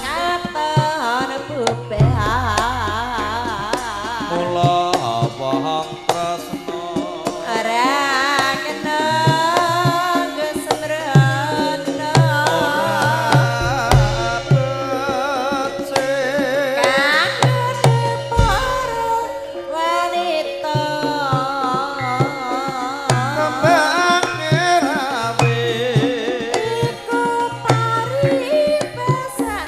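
Live Javanese gamelan music for tayub dancing: a female sinden singing with wide vibrato over sustained gamelan tones and the low strokes of the kendang drum.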